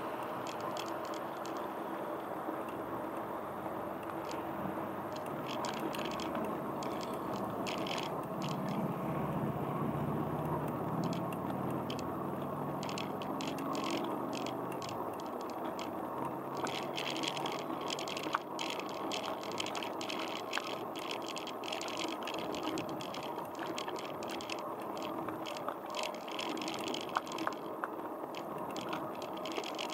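Bicycle riding on a paved street: a steady rush of tyre and wind noise, with clicking and rattling from the bike that gets busier in the second half. A passing vehicle hums by about a third of the way in.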